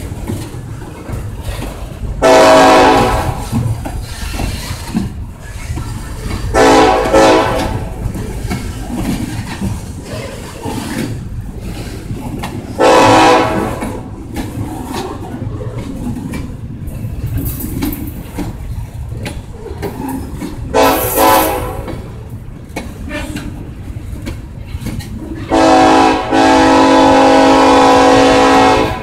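Freight cars of a Kansas City Southern de México train rolling past with a steady low rumble of wheels on rail. Over it, a diesel locomotive horn sounds five times: three long blasts, then two short ones in quick succession, then a long blast of about three and a half seconds near the end.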